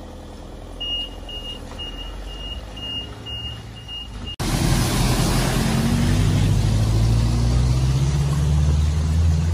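A flatbed recovery truck's engine running low with its warning beeper sounding about two times a second. About four seconds in, there is a sudden change to a car ploughing through deep floodwater at a ford: a loud rush and spray of water over the engine working hard, its pitch slowly rising.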